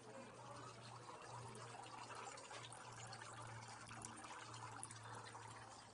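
Small fountain faintly trickling and splashing steadily into a stone basin, over a low steady hum.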